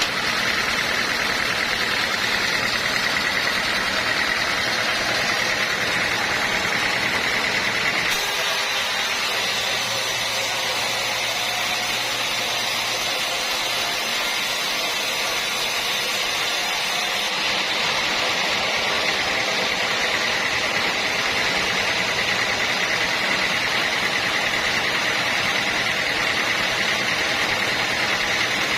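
Sawmill machinery running steadily, a continuous mechanical hum and hiss whose character changes abruptly twice, about eight and seventeen seconds in.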